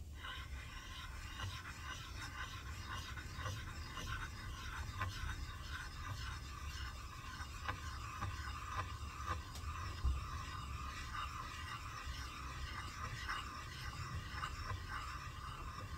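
Metal vise jaw being rubbed back and forth by hand on an abrasive to flatten it: continuous gritty scraping. One louder knock comes about ten seconds in.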